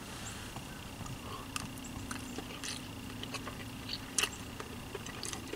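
Quiet eating sounds: a fork clicking and scraping on a paper plate and some chewing, a few scattered small clicks, over a faint steady hum.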